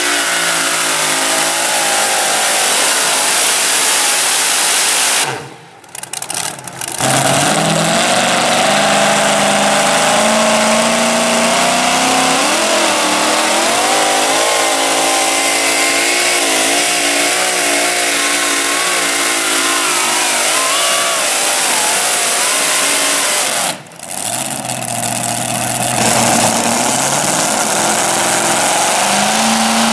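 Supercharged engines of super modified two-wheel-drive pulling trucks running at full throttle while dragging a weight-transfer sled, their pitch wavering as the revs rise and fall. The sound drops out briefly twice, about a fifth of the way in and again near the end, where one pull gives way to the next.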